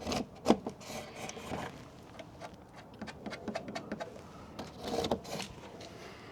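Hand work on the gate hardware: scraping and rubbing broken by scattered light knocks and clicks, with one sharp knock about half a second in.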